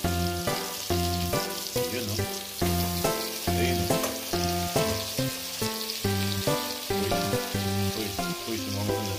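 Pork bones and ginger sizzling as they fry lightly in a hot pan, under background music with a run of short notes over a bass line.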